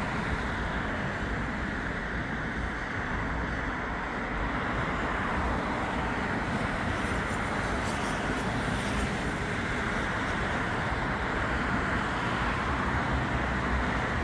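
Steady, even noise of highway traffic passing.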